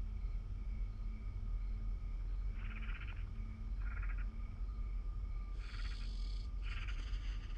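Night ambience: a low steady rumbling hum, with four short chirring animal calls from about two and a half seconds in, the last two longer and closer together.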